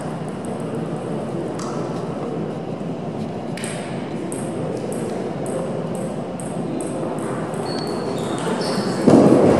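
Table tennis balls clicking off bats and tables at irregular intervals across a large sports hall, over a steady hall murmur. About nine seconds in, a sudden louder rushing noise comes in.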